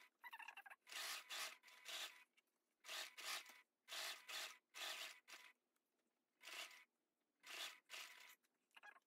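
Faint, irregular brushing strokes of hands rubbing and smoothing heavy canvas and zipper tape flat against a sewing table, about a dozen strokes, often in quick pairs.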